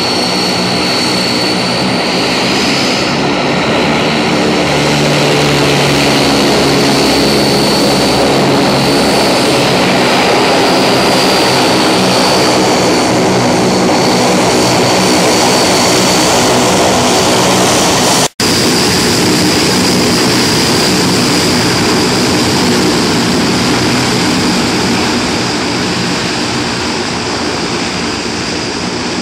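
Antonov An-12's four Ivchenko AI-20 turboprop engines running as the aircraft taxis: a steady high turbine whine over the buzzing of the propellers. The sound drops out for an instant about two-thirds of the way through and eases off a little near the end as the aircraft moves away.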